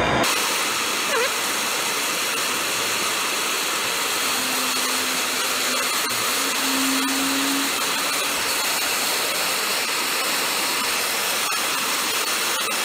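Hand-held MAPP gas torch burning with a steady rushing hiss as its flame heats a copper cable lug to solder it onto heavy battery cable.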